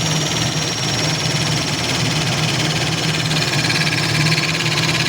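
DC battery-powered hydraulic crimping tool's pump motor running steadily while crimping a lug onto the cable, a continuous mechanical drone with a whine that grows stronger about three seconds in.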